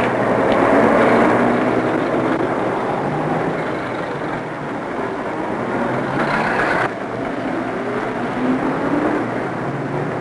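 Busy city street traffic: a dense, steady wash of car and motor noise. The higher part of the noise drops away abruptly about seven seconds in.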